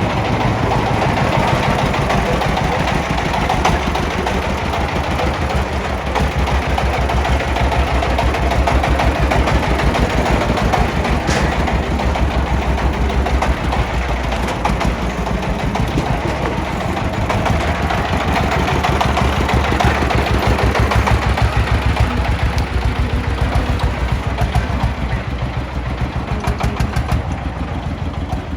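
Diesel engines of an excavator and a công nông farm truck running steadily with a fast chugging beat. The sound swells louder a few times and eases off near the end.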